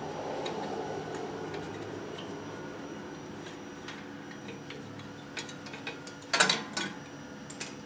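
Steel drum-brake hardware being worked with vise grips: rubbing and light metallic clicks as the main shoe return spring is levered off, with a sharp metallic clatter about six and a half seconds in.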